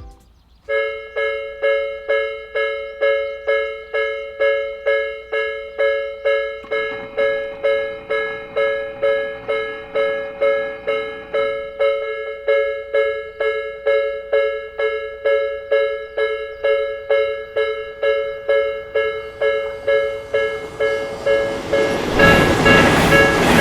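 Japanese level-crossing warning bell starts ringing under a second in: an electronic two-tone clang repeating about twice a second, signalling that a train is coming. Near the end the loud rumble of a Tobu Isezaki Line train reaching the crossing rises under the bell.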